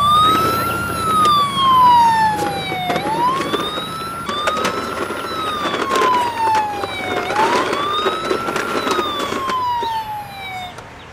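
Electronic ambulance siren of a toy ambulance, wailing: a tone that rises quickly and then falls slowly, about three cycles, over a steady rattling noise.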